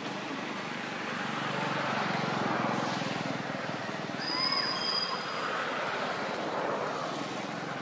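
Background motor-vehicle noise, a steady rushing hum that swells about two seconds in and stays up, with a few short high whistles in the middle.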